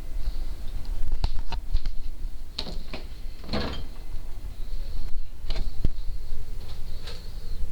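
Refrigerator door being opened and handled: several sharp clicks and knocks, with a longer scraping rustle about three and a half seconds in.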